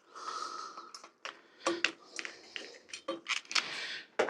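Scattered light clicks and knocks of a plastic bottle cage being handled and turned over, about a dozen irregular taps.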